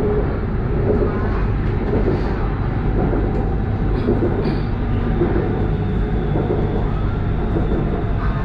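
BTS Skytrain electric train running between stations, heard from inside the carriage: a steady rumble of the running train that stays even in level.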